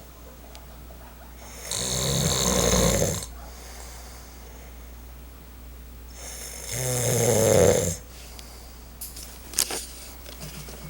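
A man snoring in his sleep: two loud snores about five seconds apart, each lasting about a second and a half, with quiet breathing between them. A few small clicks come near the end.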